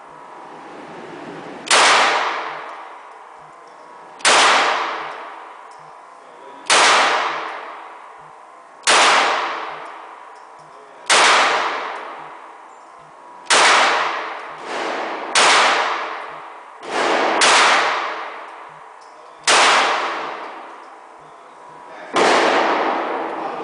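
Springfield XD9 9mm pistol fired slowly at an indoor range, about ten sharp shots spaced roughly two to two and a half seconds apart, each ringing off into a long echo. Two fainter bangs fall between shots in the middle.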